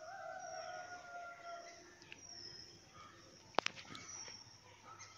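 Cashew nuts deep-frying in hot oil in a wire frying basket, a faint steady sizzle. A faint drawn-out tone sounds over the first two seconds, and a single sharp click comes about three and a half seconds in.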